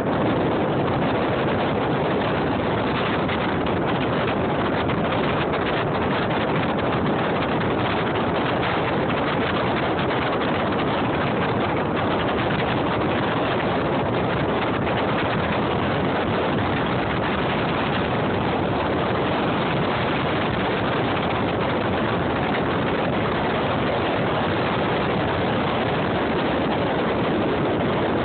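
Steady noise of a car being driven, heard from inside the cabin: engine and road noise running evenly throughout.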